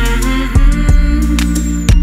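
Background instrumental music with guitar over a low bass line.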